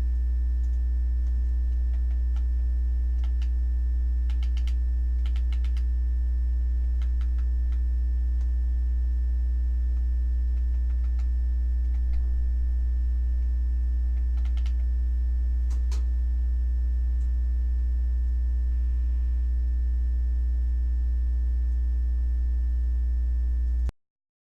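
A steady low hum with faint steady tones above it, and scattered computer keyboard and mouse clicks in small clusters; everything stops abruptly near the end.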